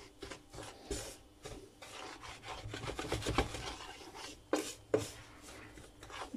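Wooden spoon scraping and stirring breadcrumbs in a stainless steel frying pan, an irregular rasping with a few sharper scrapes, as the crumbs brown in butter.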